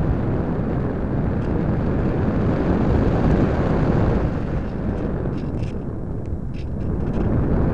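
Rushing airflow buffeting the microphone of a small camera carried aloft on a Parkzone Radian electric glider in flight: a steady low rush, dipping slightly and then swelling again near the end.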